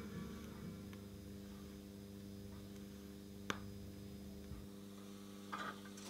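Rocket jukebox's steady electrical hum once the record has ended. One sharp click comes about halfway through, and a few light clicks near the end.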